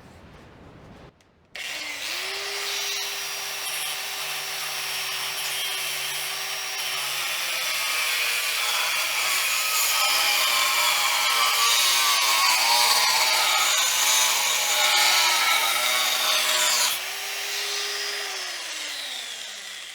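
Ferrex 40V cordless angle grinder, running on a bodge-wire bypass of its failed control board. It starts about a second and a half in and spins up to a steady whine. It then cuts into a piece of metal for about ten seconds, its motor pitch dipping and wavering under load beneath a loud hiss of the disc on metal. Near the end it runs free briefly, is switched off and winds down, its pitch falling.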